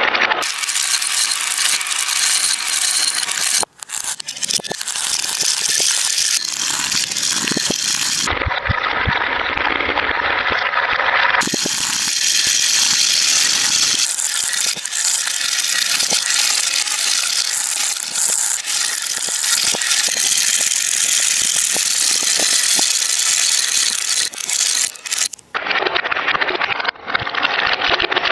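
Marbles rolling and clattering through a marble run track: a dense, continuous rattle of small clicks and knocks. The sound changes abruptly a few times.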